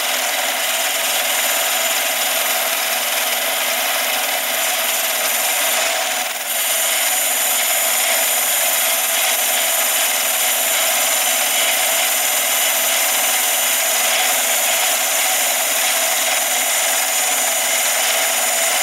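Mini lathe boring out an aluminium part with a boring bar, cut dry: a steady, high, hissing cutting noise with the lathe running under it. There is a brief dip about six seconds in.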